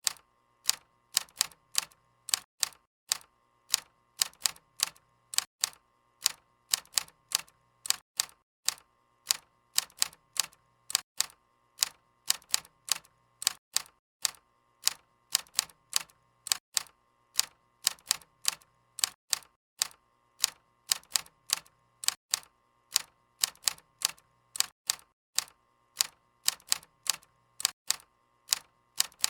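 Typewriter keys clacking in an uneven typing rhythm, about three strikes a second, with a faint steady hum under them.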